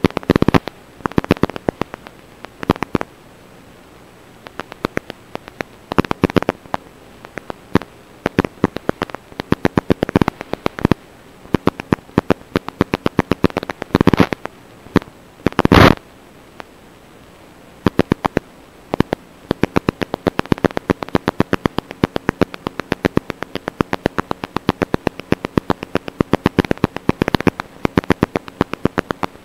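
Crackling, popping static from an analog FPV drone video link, irregular clicks with several louder bursts of hiss.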